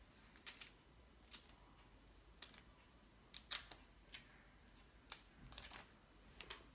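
Short, crisp clicks and crinkles of a printed sticker label being peeled off its backing and pressed onto a folder: about a dozen sounds spaced irregularly, the loudest a pair about three and a half seconds in.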